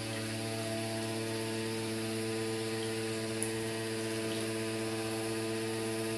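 Pool pump motor humming steadily over the hiss of churning water.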